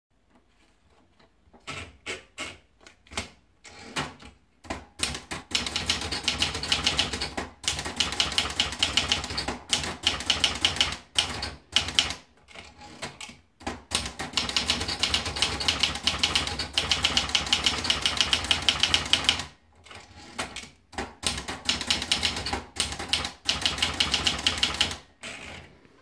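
Olivetti Lettera 35 manual portable typewriter: a few separate clacks as the sheet of paper is loaded, then fast typing in bursts of rapid keystrokes with short pauses between them.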